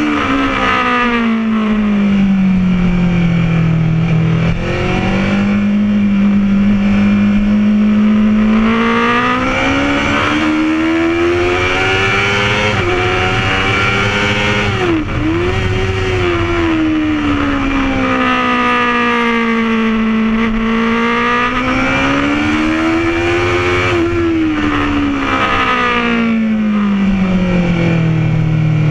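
Honda CBR1000 inline-four engine running hard on track, heard from on board: its note falls over the first few seconds, holds, then climbs and falls repeatedly as the rider accelerates out of corners and rolls off into them, with one quick sharp dip in pitch midway.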